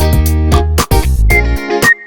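Upbeat background music with plucked guitar, a bouncing bass line and a steady beat.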